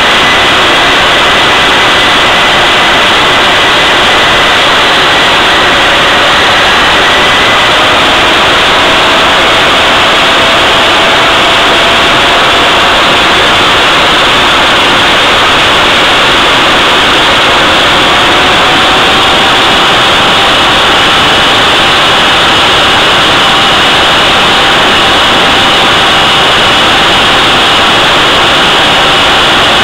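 Loud steady jet-like roar of an engine running on a thrust test stand, held at a constant output. Faint whistle tones drift slowly upward in pitch underneath the roar.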